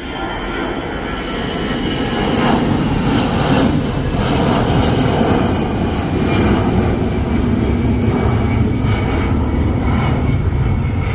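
Jet airliner passing low overhead. The engine noise builds over the first couple of seconds, then holds loud and steady, with a high whine over a low rumble.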